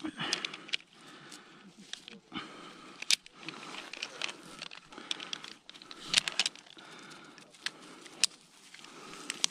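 Tree-climbing rope and metal hardware being handled: scattered sharp clicks and clinks of carabiners against a rope descender, over rope and pine-branch rustling.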